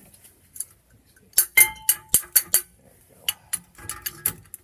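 Sharp metal clinks and clicks of a wrench and a brake caliper piston compressor tool working against a truck's rear brake caliper. A quick run of about five strikes, one ringing briefly, is followed by a few lighter clicks.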